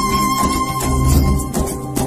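Background music: a held melody tone over a steady low beat.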